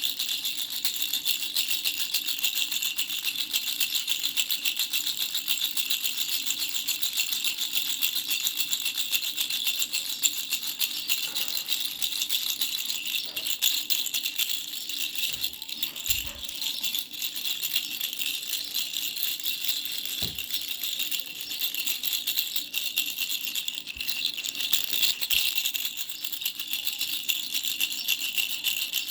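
Baby rattle with three small bells shaken steadily and fast, giving a continuous bright jingling with a couple of brief soft knocks about midway.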